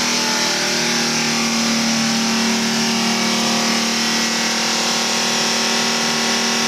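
Car engine held at steady raised revs during a hydrogen carbon-cleaning treatment, with a steady hiss over it.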